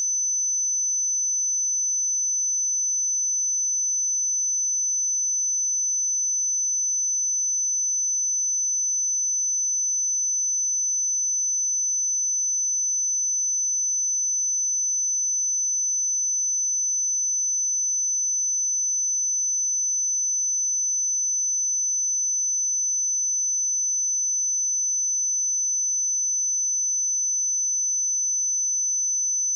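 A pure 6058 Hz sine-wave test tone, one steady high-pitched whistle held at constant pitch and level.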